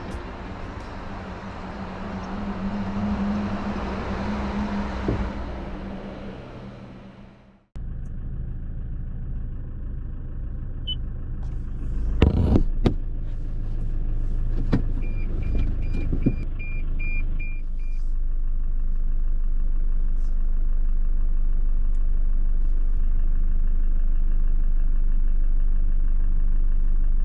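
A car driving, heard from inside: a steady low rumble of engine and road that grows a little louder, with a couple of knocks and a short run of light, regular ticks partway through. It is preceded by a few seconds of a broad hiss that cuts off suddenly.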